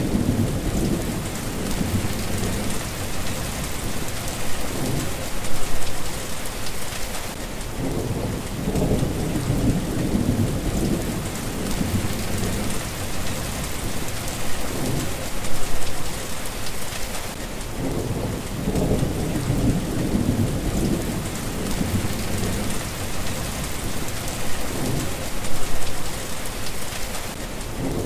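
Steady rain hissing, with low rolling rumbles of thunder that swell and fade several times, about every ten seconds.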